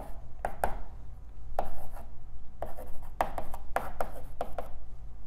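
Chalk writing on a blackboard: a run of irregular taps and short scratchy strokes as symbols are written.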